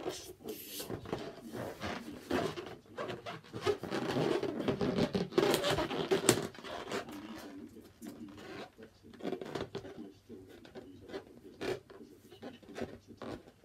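Inflated latex balloon being handled and tied off: rubbery rubbing, squeaking and scratchy rustling as the neck is stretched and knotted, busiest in the middle with a couple of sharp clicks, then quieter fiddling.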